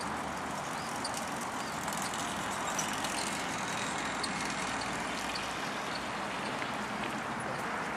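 Steady hum of road traffic from nearby streets, an even rushing noise with no single vehicle standing out.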